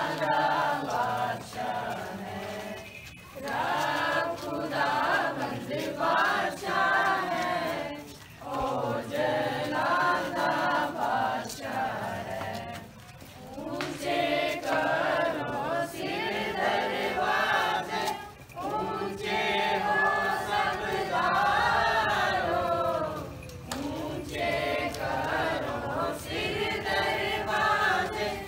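A congregation of men and women singing an Orthodox Paschal hymn together, in phrases of a few seconds with short pauses for breath between them.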